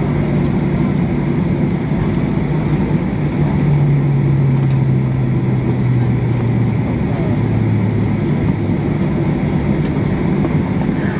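Boeing 737-800 cabin noise on the ground after landing: the steady drone of its CFM56 engines and airflow, heard from inside the cabin, with a low hum that slowly drops in pitch midway as the engines wind down.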